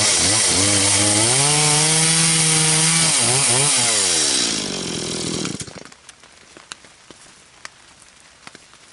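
Two-stroke chainsaw cutting through a log, its engine pitch dipping and rising under load, then running down and stopping about five seconds in. A few light knocks follow.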